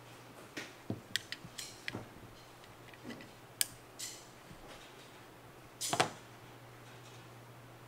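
Light clicks and taps of small plastic and metal parts, as hands work the fire selector switch off an airsoft rifle's receiver. A quick run of small clicks comes between one and two seconds in, and the loudest cluster of knocks comes about six seconds in.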